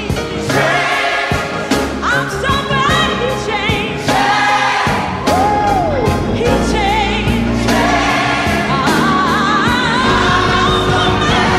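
Gospel music: a choir and a lead singer with wide vibrato over bass and drums.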